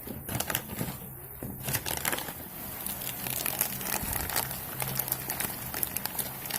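Plastic food packet crinkling and crackling as it is handled, in irregular rustles.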